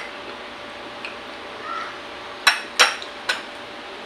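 Tableware clinking during a meal: three sharp clinks in quick succession about two and a half seconds in, as spoons, bowls and plates knock together.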